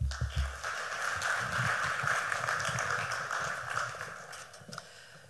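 Audience applauding, the clapping fading away over the last second or so. A brief low thump at the very start.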